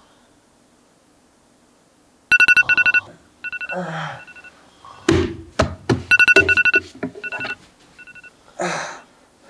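Smartphone ringing with a rapid trilling electronic tone in short repeated bursts, starting about two seconds in. A few dull thumps come about five seconds in.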